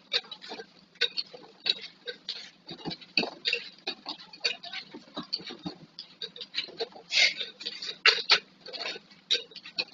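Plastic flip-top bottles being handled, with many irregular light clicks and knocks as they tap against each other.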